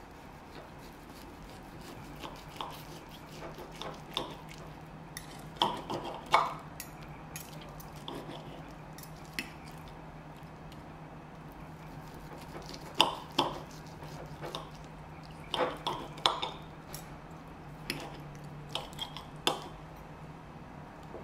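Steel knife and fork clinking and scraping against a ceramic plate while slicing a cooked ribeye steak, in scattered clusters of sharp clicks.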